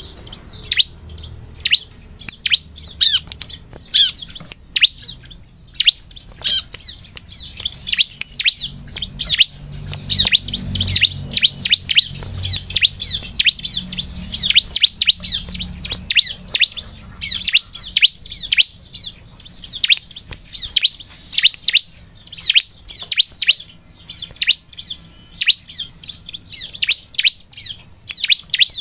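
Bar-winged prinia (ciblek) calling: rapid runs of short, sharp, high chirps, each sweeping downward, with brief pauses between runs.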